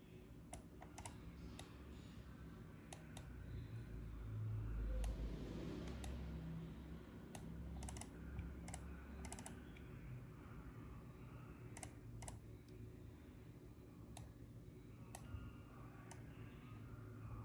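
Faint, irregular clicks of a computer keyboard, single presses spaced a second or so apart, with a low rumble that swells about four to six seconds in.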